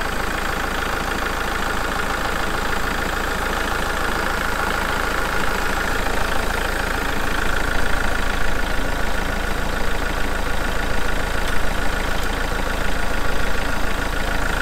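Kubota MX5800 tractor's four-cylinder diesel engine idling steadily, heard close to the open engine bay. It is running okay again now that a squirrel nest has been cleaned out from under the hood.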